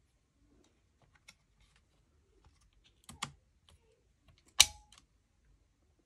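DDR3L laptop RAM module being seated in its slot: a few light clicks and taps, then a sharp snap with a brief ring about four and a half seconds in as the module clicks into place.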